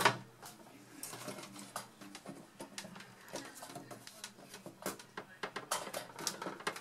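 Scattered light clicks, knocks and scrapes of plastic latches and parts being pushed and worked inside a Power Mac G3's metal case, beginning with a sharper click.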